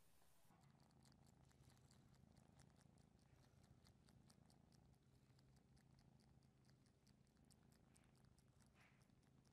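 Kitten purring faintly and steadily, starting about half a second in, with a quick run of small mouth clicks, several a second, as it suckles and licks a blanket.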